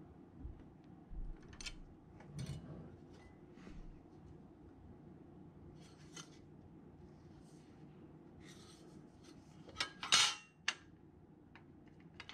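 Fluting pliers clicking and creaking as they crimp flutes into the flange of a thin aluminum rib to take the bow out of it, with small scrapes of metal on metal. About ten seconds in, the loudest sound: a light metallic clatter as the aluminum rib is set down on the wooden bench.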